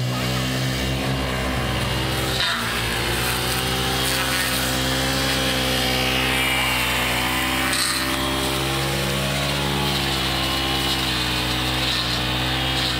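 Brush cutter's small petrol engine running continuously at a steady speed, its pitch dipping and recovering slightly a few times.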